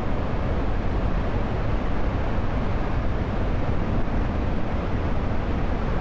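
A large waterfall in heavy flood, a steady, unbroken rushing noise that is heaviest in the low end.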